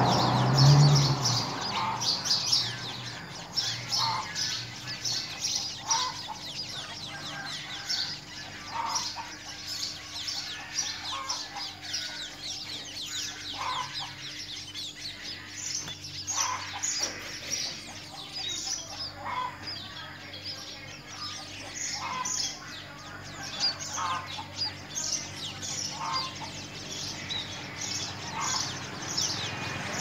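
Birds chirping outdoors: a steady stream of short, high, falling chirps, with lower single calls repeating every second or two and a louder, low call right at the start.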